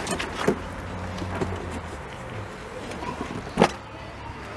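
A few clicks and knocks as a person settles into a car's driver's seat with the door open, over a low steady hum that fades about halfway through; the loudest is one sharp knock about three and a half seconds in.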